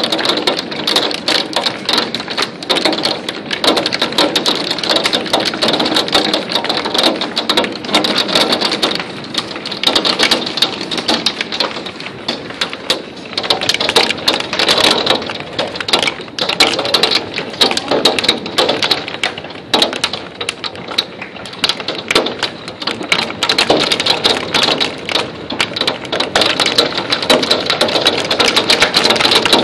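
Hail pelting a wooden deck and the doorway around it: a dense, continuous clatter of many small stones striking the boards, mixed with heavy rain.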